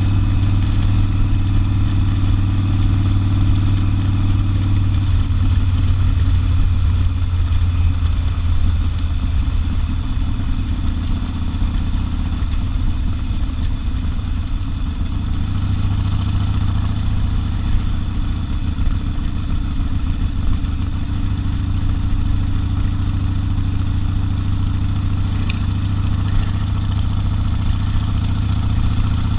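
Harley-Davidson Sportster's air-cooled V-twin running through an open exhaust, a loud low pulse. It holds a steady engine speed, runs less evenly from about five to fifteen seconds in, then settles back to a steady note.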